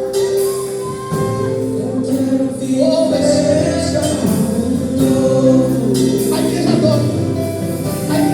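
Gospel music: voices singing together, holding long sung notes over instrumental accompaniment.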